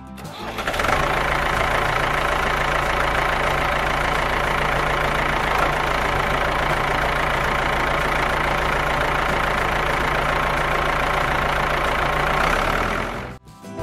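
Tractor engine idling steadily. The sound fades in over about a second and cuts off shortly before the end.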